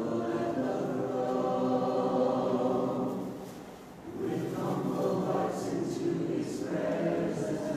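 Congregation singing a hymn a cappella in several voices without instruments, in held chords: two phrases with a breath between them about three and a half seconds in.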